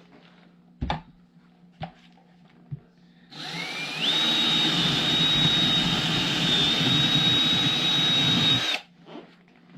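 A power drill runs for about five seconds, its high whine rising as the motor comes up to speed, then holding steady until it stops suddenly. A few light knocks of handling come before it.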